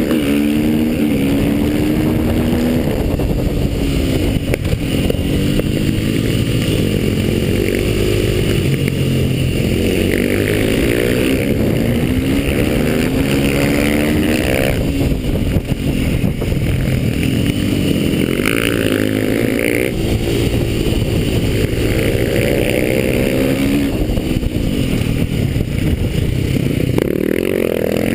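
Supermoto motorcycle engine heard from on board, revving up hard again and again and dropping back quickly at each shift and corner entry, as the bike is ridden fast around a tight track.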